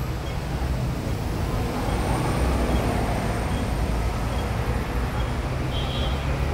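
Steady low rumble of outdoor city background noise.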